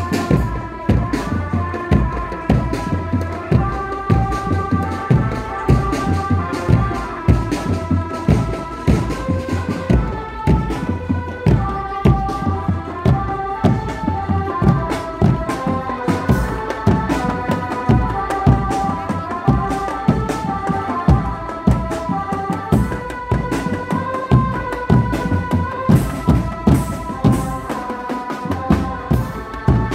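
Live drum band music: bass drums and snare and tom drums beating a fast, steady rhythm under a repeating melody.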